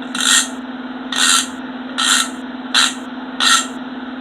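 Freshly greased Craftsman 3/4-inch drive hand ratchet being swung back and forth: five short raspy ratcheting strokes, about one every 0.8 s, as the pawl runs over the gear's few coarse teeth.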